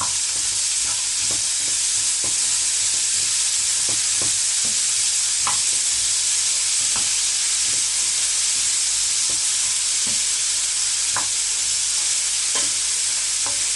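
Chopped carrots and onions sizzling steadily in hot oil while being sautéed, with a utensil scraping and tapping against the pan every half second to a second as they are stirred.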